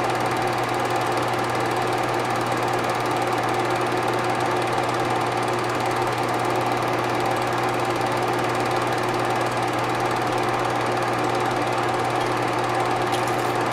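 Film projector running, a steady mechanical whirr and clatter over a low hum, likely from transferring a silent home movie.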